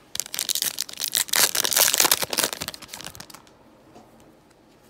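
A Panini Prizm trading-card pack wrapper being torn open and crinkled in the hand: a dense, crackly rustle lasting about three seconds, loudest in the middle.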